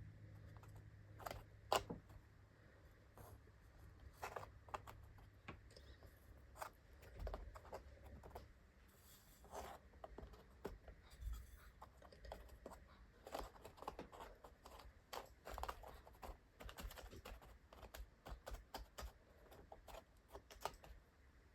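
Faint scratching, scraping and light clicks of small objects being handled by hand. A low hum stops about a third of the way through.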